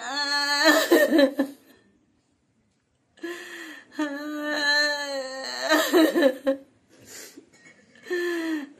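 A woman wailing and crying in grief, in long drawn-out pitched phrases: one at the start, then a second, longer one after a silence of about a second and a half, with a third beginning near the end.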